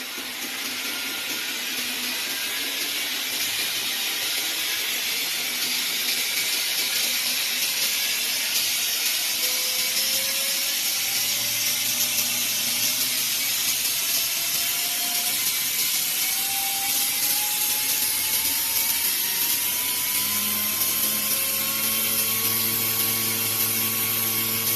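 BA Shredder belt grinder spinning up from low speed toward full speed: the motor and belt run with a whine that rises steadily in pitch and a rush of belt noise that grows louder, with a steady low hum joining in the second half.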